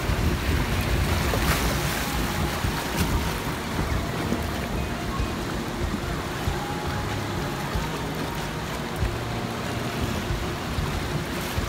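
Water rushing and splashing around a log flume boat as it runs along the channel after a drop, loudest at first and easing off, with wind buffeting the microphone.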